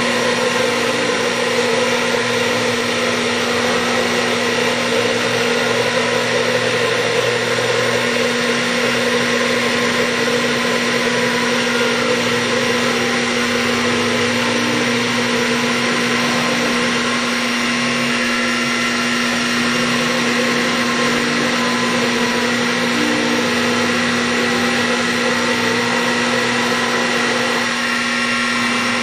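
X2 mini mill running steadily as its 1/8-inch high-speed-steel end mill, spinning at about 1000 RPM, cuts a slot in half-inch UHMW plastic, with an even whine over the machine noise.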